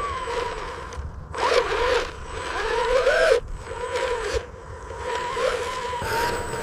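Small electric motors of RC construction models whining, their pitch rising and falling as they work and cutting in and out several times, over a scratchy, scraping noise.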